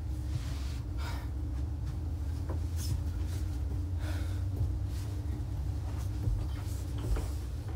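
A man's breathing and movement noises, with faint rustling and shuffling as he gets up from carpeted stairs, over a steady low hum.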